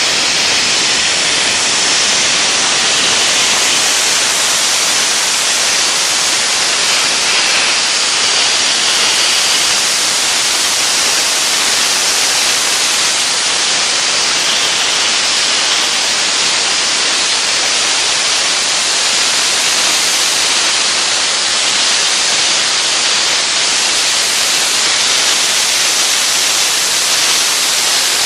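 Dry ice blasting nozzle firing compressed air and dry ice pellets at a lacquered metal part, stripping the grime off the finish: a loud, steady hiss with no break.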